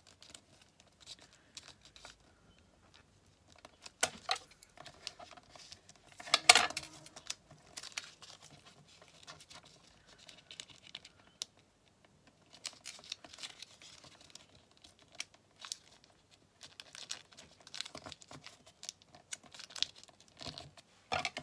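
Thin translucent paper crinkling and rustling as it is folded and creased by hand, in a run of small irregular crackles with a louder crackle about six and a half seconds in.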